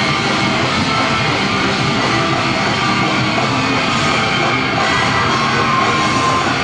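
Live rock band playing with electric guitars and drums, heard on a mobile phone's concert recording.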